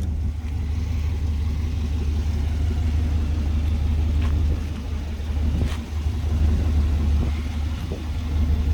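1996 GMC Yukon GT's 5.7 Vortec V8 idling steadily, a low even hum with a couple of faint ticks.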